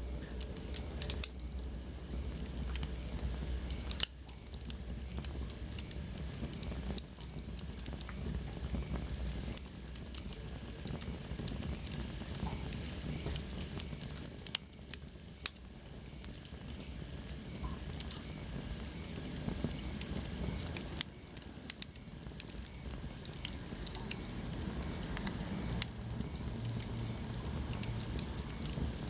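Wood fire burning in a fireplace, crackling with frequent sharp pops over a steady hiss. About halfway through, a faint high whistle slowly falls in pitch.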